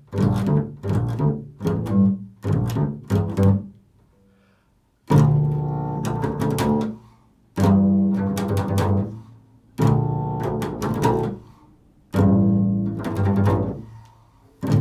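Solo double bass played pizzicato in an improvised tone poem: a quick run of plucked notes, a short pause, then slower single notes, each ringing out and fading over about two seconds.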